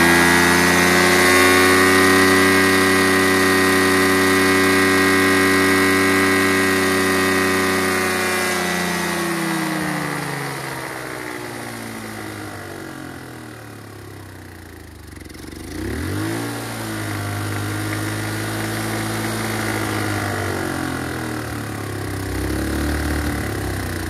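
A GY6 150cc scooter engine running at a steady speed, then slowing and sagging almost to a stall from about ten seconds in, before picking up again about sixteen seconds in and running unevenly. It won't settle into an idle, although the air-fuel mixture screw and the idle screw on its newly fitted carburetor have both been adjusted.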